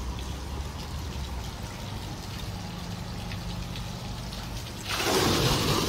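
Water from the Piazza 'bucket' fountain, a 1960s kinetic sculpture of tipping metal buckets: a faint trickle over a low steady hum, then about five seconds in a sudden loud rush of splashing water as a bucket empties into the pool.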